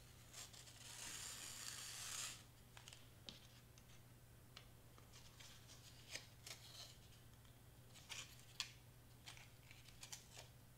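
Faint handling of twine and cardstock banner pennants: a rasping rustle lasting about a second and a half starting about a second in, then scattered light clicks and taps.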